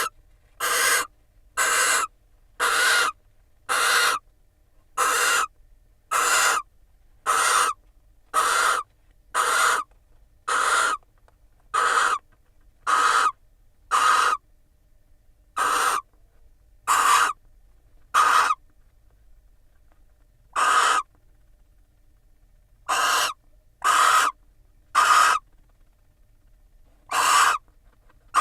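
Barn owl in the nest box giving a long series of harsh, rasping hiss calls, each about half a second long and repeated roughly once a second, with a few pauses of several seconds.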